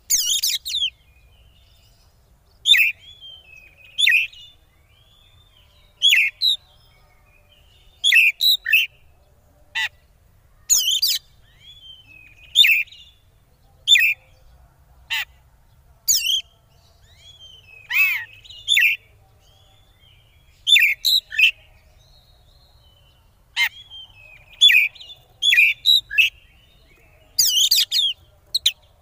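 Oriental magpie-robin (kacer) singing in short loud bursts of scratchy chatter mixed with whistled notes, one burst every second or two with brief pauses between. This is the excited 'konslet' style of song that is played as a bait call to rouse other kacers.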